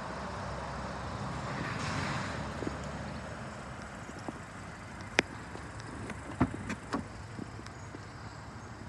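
Steady outdoor background noise. From about the middle onward come a few sharp clicks and knocks as the rear door of a Skoda Scala hatchback is unlatched and swung open.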